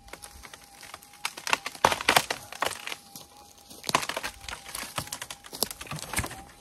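Dry wood cracking and splintering in an irregular run of snaps, with the loudest snaps about two and four seconds in, as a tree fork is broken apart by hand. Under it runs the metal detector's steady threshold tone.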